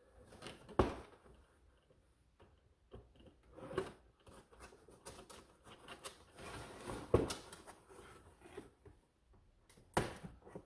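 Cardboard box packaging being handled and pulled open: scattered rustles, scrapes and knocks, with sharper knocks about a second in, about seven seconds in and near the end.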